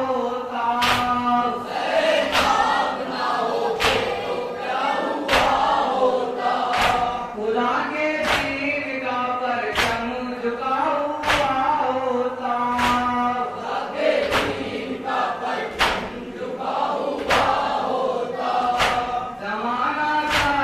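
A group of men chanting a Shia noha (Muharram lament) in unison, with a sharp slap of many hands beating their chests (matam) keeping time about once every second and a half.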